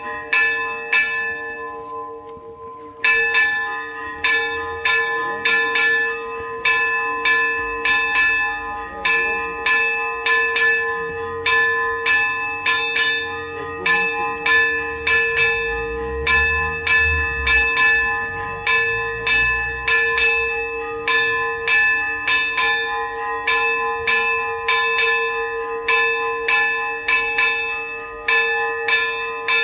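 Church bells rung in rapid, continuous festive pealing, several strikes a second with the tones ringing on. There is a short break about two seconds in.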